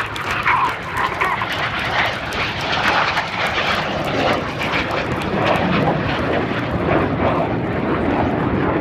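Jet noise from the Red Arrows' BAE Hawk jets flying their display: a loud, steady rushing roar that goes on without a break.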